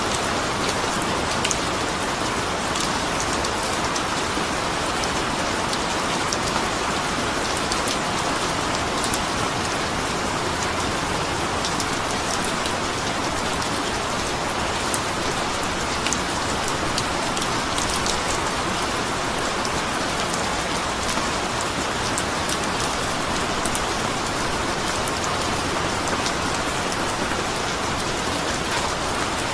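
Steady rain falling on a surface, with a dense patter of individual drops ticking over the even hiss.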